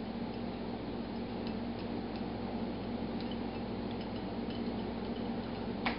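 Quiet kitchen background: a steady low hum and hiss, with a few faint light ticks scattered through it.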